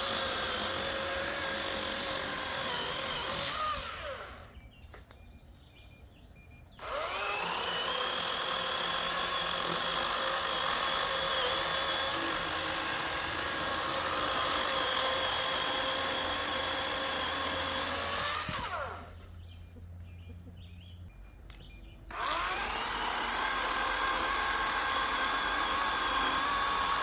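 Kobalt battery-powered electric chainsaw running with a steady high motor whine while cutting up a felled tree. It is released twice, winding down in pitch to near quiet for about three seconds each time, then spins back up and runs on.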